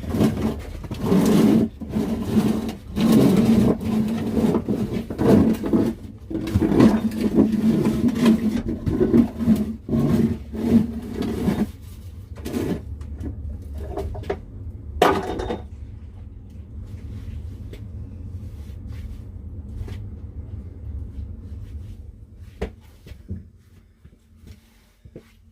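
Heavy steel well pressure tank being dragged and carried out through a tight space: about twelve seconds of dense scraping and knocking, then quieter scattered knocks and one sharp bump, over a steady low hum.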